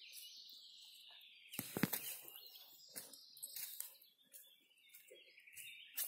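Forest birds singing, a continuous high twittering, with the walker's footsteps on a dirt forest track. The loudest step is about two seconds in.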